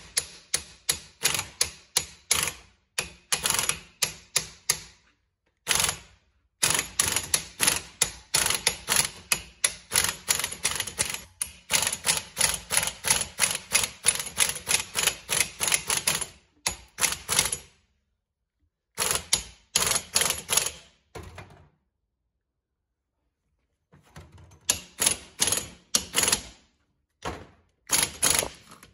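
Quick, even metallic clicking, about three clicks a second in long runs with a few short pauses, from the forcing screw of a C-frame ball joint press being wound down by hand. The ball joint is being pressed into the control arm.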